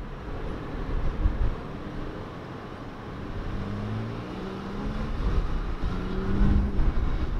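Toyota FJ Cruiser 4x4s' 4.0-litre V6 engines running as they drive off over sand, a low rumble with engine notes rising and falling in pitch from about halfway as one revs.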